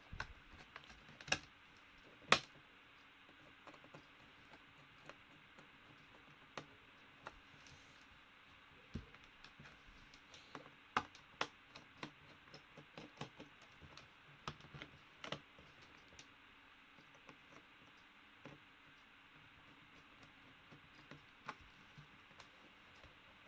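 Irregular small clicks and taps of hands working on an open laptop's case, closing the RAM compartment cover, with a few louder knocks among them.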